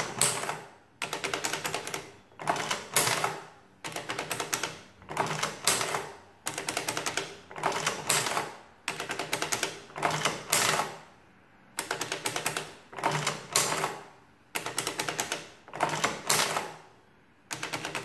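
Vintage Sundstrand mechanical adding machine being cycled by its hand crank, pulled over and over about once every second and a quarter: each pull is a run of rapid clicking from the adding mechanism ending in a loud clack, with number keys pressed between pulls.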